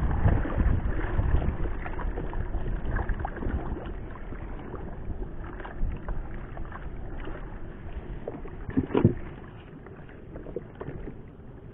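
Water lapping and sloshing against the hull of a small paddled fishing boat, slowly getting quieter, with a few knocks on the boat, the loudest about nine seconds in.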